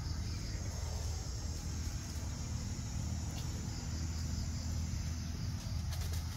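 Forest ambience: insects buzzing steadily in a high, even drone, over a low rumble, with a few faint clicks near the end.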